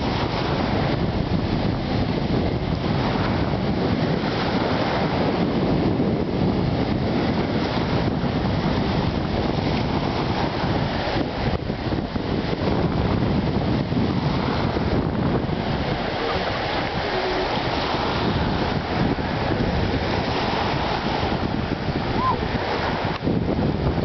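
Small surf waves breaking and washing in along a sandy shoreline, a steady rush of water, with wind buffeting the microphone.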